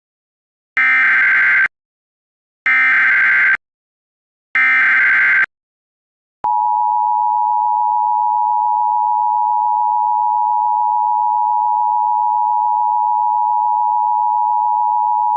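Emergency Alert System alert tones: three short, buzzy bursts of digital SAME header data, each about a second long, then about six seconds in the steady two-tone EAS attention signal starts and holds. The sequence is the signal that an emergency message is about to be read.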